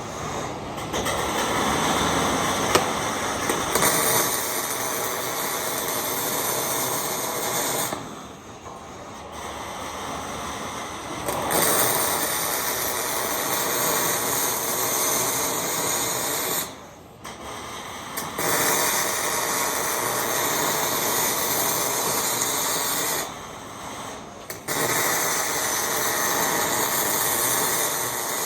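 MIG welder arc crackling and hissing in several runs of a few seconds each, with short pauses between welds.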